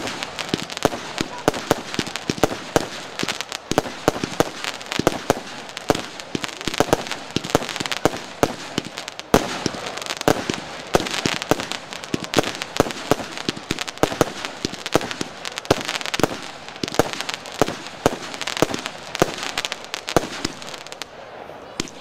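Z39 consumer fireworks cake firing shot after shot: a rapid run of sharp bangs, several a second, as the shells launch and burst overhead.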